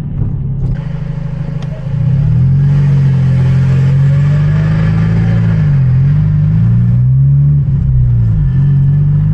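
Hyundai Genesis Coupe 2.0T's turbocharged four-cylinder engine running under hard acceleration, getting louder about two seconds in. Its pitch dips briefly twice, near six and eight seconds in, at gear changes.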